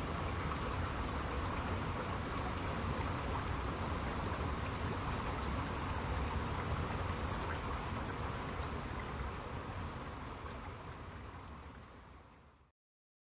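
Water running and splashing beneath icicles and ice columns in an ice-bound mountain stream: a steady rush of water that fades out near the end.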